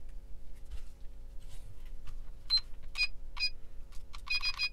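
Digital battery charger beeping as its buttons are pressed to set the charge current: three short beeps, then a quick run of beeps near the end, with light clicks of handling.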